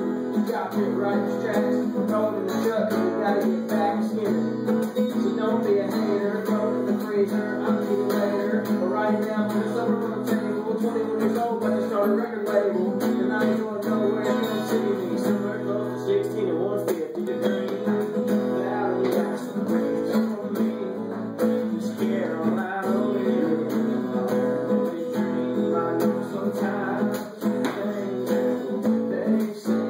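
Acoustic guitar strummed steadily, chords ringing without a break.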